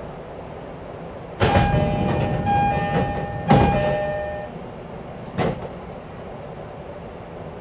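E531-series commuter train's doors opening at a station stop: a sudden thump, then an electronic door chime ringing for about three seconds. Sharp knocks follow about two and four seconds later.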